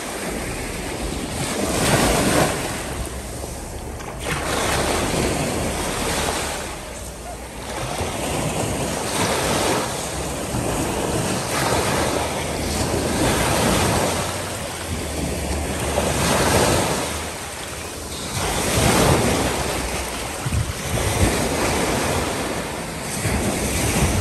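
Sea waves washing in and drawing back, the surf swelling and ebbing every few seconds, with wind buffeting the microphone.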